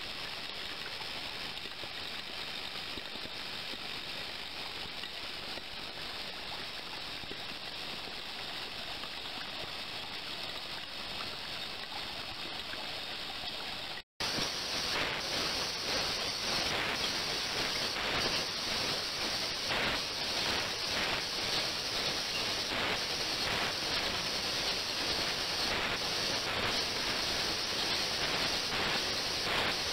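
Water pouring in a thin stream from a stainless steel tray into a water-filled ultrasonic tank, giving a steady splashing hiss. After a brief dropout about halfway, a louder steady hiss with irregular crackles comes from a water-filled glass container sitting in an operating ultrasonic bath, its water surface rippling.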